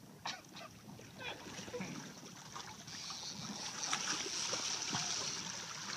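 Sea water sloshing and splashing at the side of a boat, with wind hiss on the microphone. There are a few light knocks near the start, and the water noise grows louder over the next couple of seconds.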